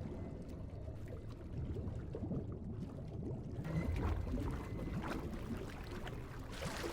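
Water sloshing and splashing around a man held under water as he struggles, over a low muffled rumble; the splashing grows louder about halfway through.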